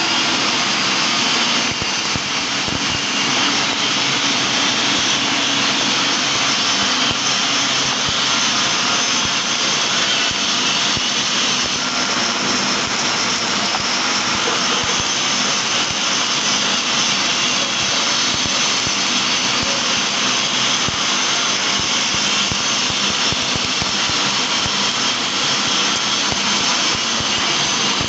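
MIG welding arc running a fillet weld on a plate T-joint in the overhead (4F) position: a steady, dense crackling hiss that holds unbroken, one continuous bead.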